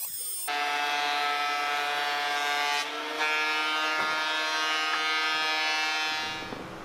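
Thickness planer running: a steady motor whine with many overtones that starts abruptly about half a second in and dies away near the end, with a single knock about four seconds in as the planed board is lifted off the outfeed table.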